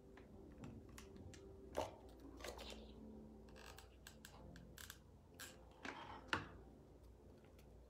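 Quiet handling of a cardboard puppet and a hot glue gun: scattered light clicks and taps as the glue gun is pressed along the cardboard seams.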